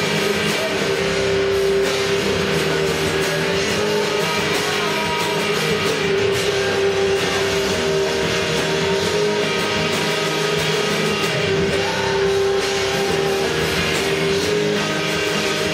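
Electric guitar played along with a heavy rock recording, with a long held note sustaining underneath much of the passage.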